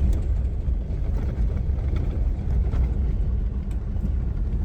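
Vehicle driving downhill, a steady low rumble of engine and road noise with a few faint knocks.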